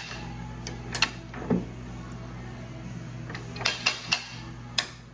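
Sharp metallic clicks and clinks, about seven of them in two clusters, as a press ram drives the inner pinion bearing race home into a Nissan R200 differential case through the old race used as a pusher. A steady low hum runs underneath.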